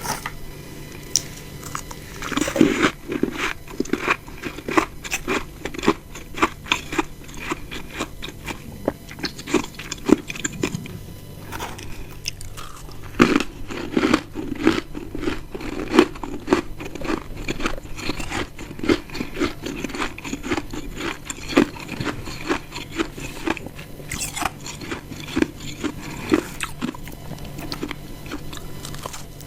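Close-up biting and chewing of ice chunks: rapid, crisp crunches packed close together, with a few louder, sharper bites.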